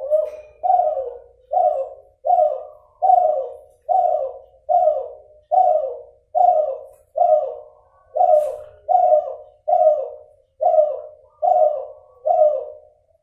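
Derkuku (spotted dove), a Kelantan cross, cooing a long run of short, falling coos at an even pace of a bit more than one a second. Its voice is one the breeder still calls nasal.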